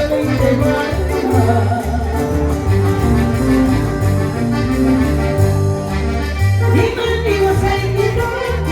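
Latin dance music playing loudly, with a steady bass line of short repeated notes under the melody.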